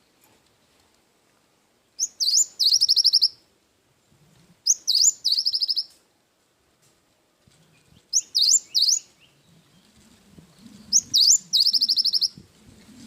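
Cinereous tit (gelatik batu) singing: four phrases a few seconds apart, each a couple of sharp sweeping notes running into a fast, high trill.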